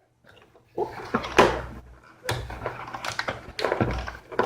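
Hands handling laptop parts and a RAM module: a run of sharp plastic-and-metal clicks, taps and rustling, starting about a second in.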